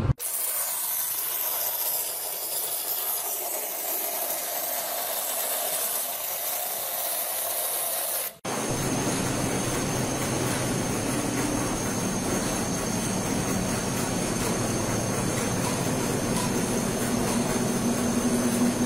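A steady high hiss for about eight seconds, then a sudden break. After the break, a metal planing machine shaves a steel bar with its single-point cutting tool, giving a steady grinding scrape with a thin high whine.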